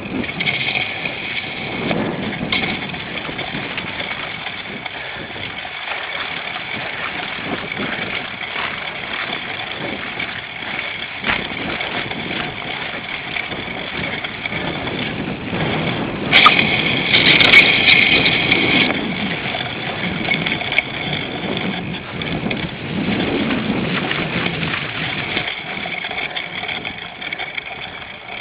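Cyclocross bike being ridden hard, heard from a camera mounted on the bike or rider: steady wind on the microphone with the bike rattling over rough ground. It grows louder for a couple of seconds a little past the middle.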